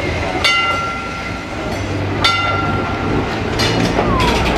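Tram bell struck twice, nearly two seconds apart, each a clear ding that rings on for about a second, over the low rumble of a Glasgow tramcar running on street track. Near the end comes a short falling squeal.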